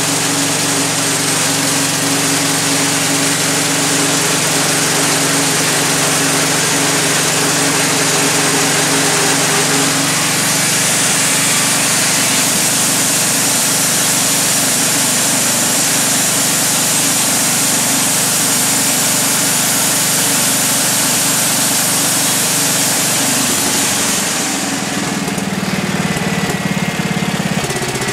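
1985 Wood-Mizer LT-30 band sawmill running, its engine held at a steady speed while the band blade saws through a log. About 24 seconds in, the cutting hiss drops away and the engine note changes as the cut finishes.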